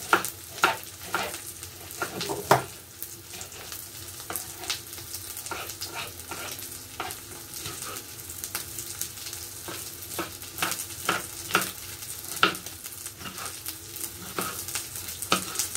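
Breaded chicken breasts frying steadily in a pan, with irregular sharp knocks of a knife slicing red pepper on a wooden chopping board.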